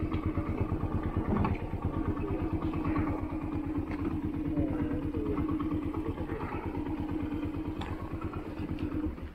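Yamaha XTZ 125's single-cylinder four-stroke engine running steadily at low revs with an even pulse, then the sound stops abruptly near the end.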